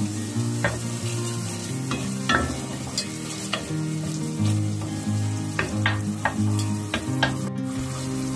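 Thick lentil and tomato sauce sizzling and bubbling in an enameled cast-iron pot while butter is stirred in, with about a dozen sharp taps and scrapes of the stirring utensil against the pot.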